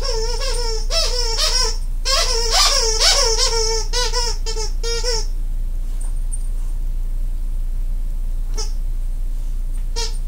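Squeaky owl toy squeaking rapidly over and over as a dog chews on it: a quick run of squeaks, a longer run that stops about five seconds in, a single squeak a few seconds later, then more squeaks starting near the end, over a steady low hum.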